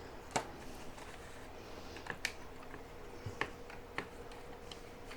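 Scattered small clicks and taps of hard plastic parts and tools being handled while a laptop's case is pried apart, over a faint steady hum.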